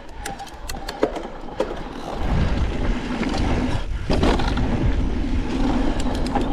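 Electric mountain bike ridden on a dirt trail. A few sharp clicks and rattles from the bike come in the first two seconds. Then, from about two seconds in, a louder steady rumble of tyres and wind with a faint even hum.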